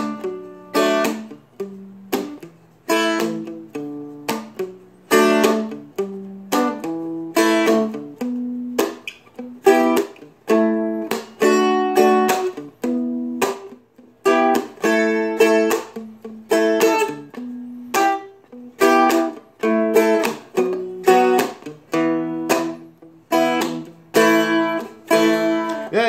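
Seagull Merlin, a small four-string dulcimer-style instrument, strummed with a pick through a repeating chord pattern. Each chord starts sharply and rings briefly, and short muted percussive hits fall between some of them.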